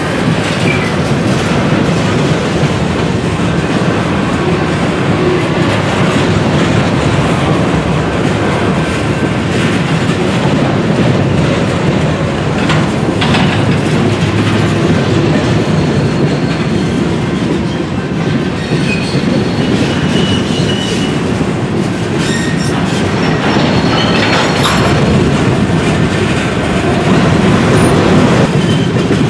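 Freight train of covered grain hopper cars rolling past close by: a steady rumble of steel wheels on rail with clickety-clack over the rail joints. Brief high-pitched wheel squeals and a few clanks come now and then in the second half.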